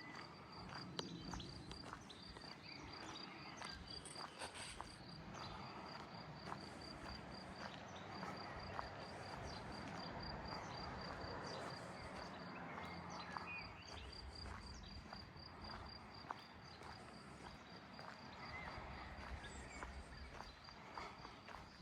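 Footsteps of someone walking outdoors, irregular light steps. An insect, cricket-like, chirps steadily at one high pitch, about four to five chirps a second.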